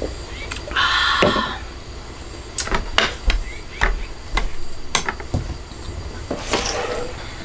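Sharp, irregular clicks and clinks of a metal utensil working in a small frying pan, with a beer can set down on the table. A brief voice sound comes right after a sip about a second in.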